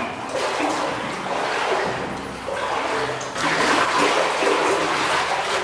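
Water sloshing and splashing as someone wades through a flooded concrete corridor. It eases slightly in the middle and grows louder again from about three and a half seconds in.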